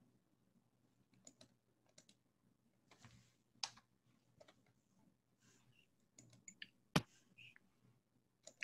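Faint, scattered clicks of a computer mouse and keyboard keys, a dozen or so spread irregularly, with the sharpest single click about seven seconds in.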